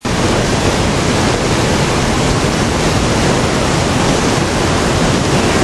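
Artificial indoor rain pouring steadily from a ceiling grid: a dense, even hiss of falling and splashing water.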